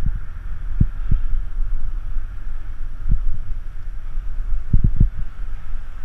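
Wind buffeting the microphone of a camera on a moving bicycle: a steady low rumble broken by irregular low thumps, over a faint steady hiss of rolling tyres and passing traffic.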